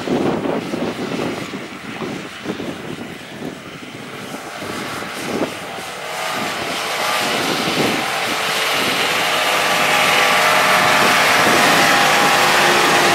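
Nissan Patrol 4x4's engine pulling steadily under load as it climbs a rocky track toward the microphone, its drone growing louder from about halfway through. Over the first few seconds there are irregular thumps and rustling.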